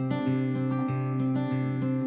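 Background music: acoustic guitar with a low note struck at an even, unhurried pace under sustained higher notes.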